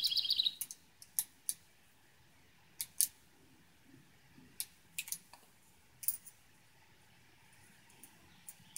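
Scattered sharp metallic clicks, about a dozen at uneven intervals, from an 1889 Bodeo revolver being handled: the cylinder turned chamber by chamber and cases worked out through the Abadie loading gate. A bird chirps briefly at the very start.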